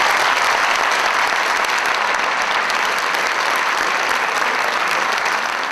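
Large audience applauding steadily in a hall, a dense, even clapping that holds at one level throughout.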